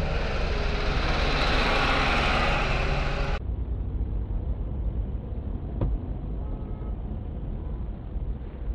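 Road and engine noise inside a car, picked up by dash-cam microphones. A loud rushing noise changes abruptly about three and a half seconds in to a duller, steady low rumble, with a single click a couple of seconds later.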